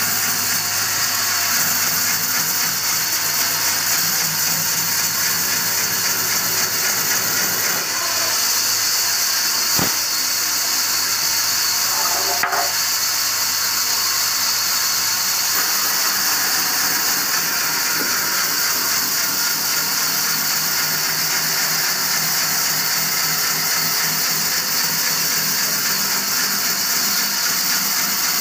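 Large vertical band saw resawing a thick wooden plank: the blade cuts with a steady, loud, high hiss, and a couple of short knocks come about ten and twelve seconds in.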